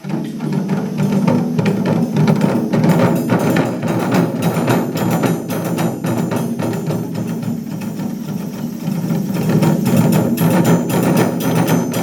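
Japanese taiko drum ensemble playing a fast, dense run of strikes that starts abruptly and keeps going without a break.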